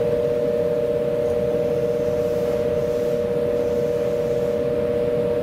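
Railway platform departure buzzer sounding a steady two-note electronic tone, starting suddenly and holding unchanged.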